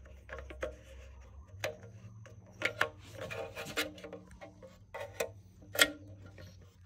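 Plastic union cap being hand-screwed onto the threaded port of a Grundfos Scala2 pump housing: irregular rubbing and scraping of the threads with scattered sharp clicks, the loudest click near the end.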